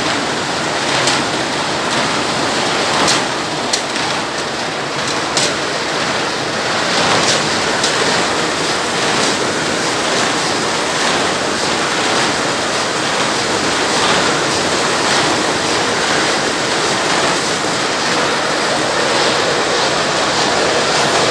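Steady, loud noise of corrugated pizza-box printing and die-cutting machines running, with a few sharp clicks in the first few seconds.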